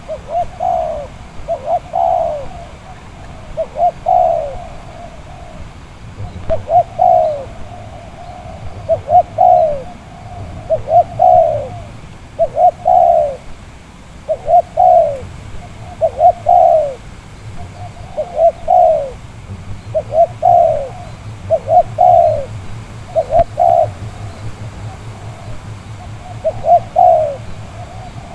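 Spotted dove (tekukur) cooing over and over, a short falling phrase about every two seconds.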